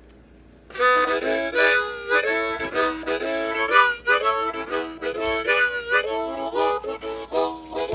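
Harmonica music playing chords with quick note changes, starting about a second in over a faint low hum.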